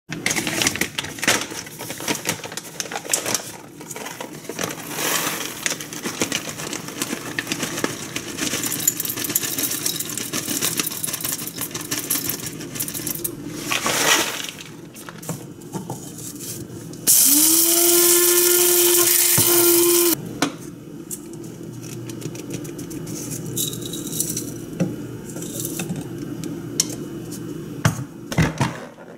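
Electric blade coffee grinder running for about three seconds while it grinds coffee beans: the motor spins up to a steady high whine, then stops. Before it comes a long stretch of clattering and small clicks, and near the end a few knocks as the grinder's lid is lifted off.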